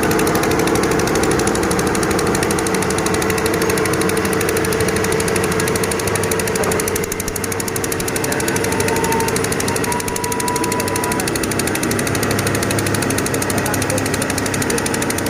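Heavy diesel engine of earth-moving machinery running steadily with a fast, even clatter, easing slightly about halfway through.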